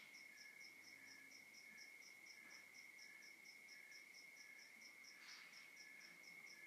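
Faint night chorus of crickets: a steady high trill with evenly spaced chirps repeating over it several times a second. A brief soft rustle-like noise comes about five seconds in.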